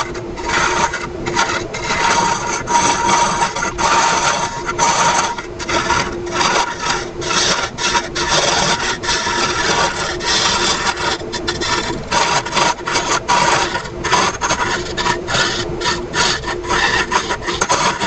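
Hollowing tool cutting inside an ashe juniper vase spinning on a wood lathe: a continuous scraping, shaving sound with many short breaks as the cut eases and bites again, over the lathe's steady hum.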